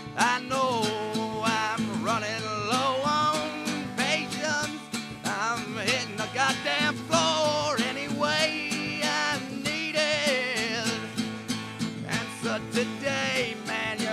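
Country-style music: plucked guitar keeping an even rhythm under a wavering melody line that slides between notes.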